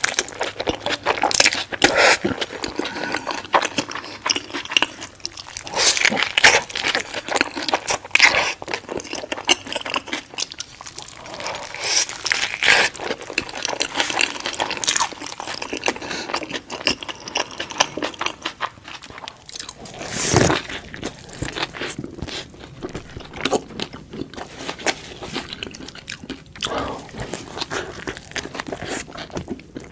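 Close-miked eating of a burger sandwich: irregular crunchy bites and chewing with crackling, one crunch about two-thirds of the way through louder than the rest.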